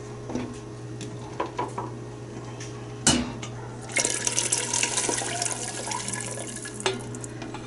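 A knock about three seconds in, then liquid pouring steadily from a metal bowl through a plastic mesh strainer into a large pot of broth, splashing for about three seconds.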